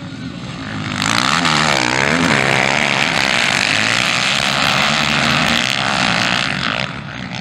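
A pack of motocross bikes racing past at close range, many engines at high revs at once, their pitches rising and falling as they go by. The sound swells suddenly about a second in and falls away near the end.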